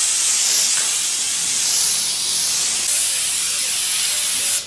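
A steady, bright spraying hiss that cuts off suddenly near the end.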